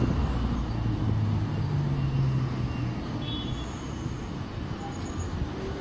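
Street traffic rumble with a steady low vehicle hum that eases a little after about three seconds. Faint high tones sound briefly in the middle.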